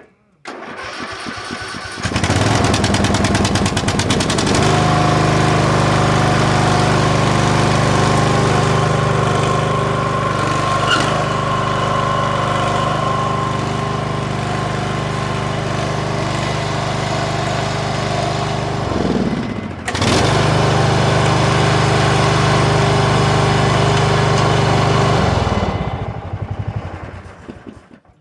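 Riding lawn mower engine cranked and started, then running steadily at speed on a test run after its deck belt was refitted. About two-thirds through, its pitch sags and the engine picks up again sharply. It is shut down near the end and runs down to a stop.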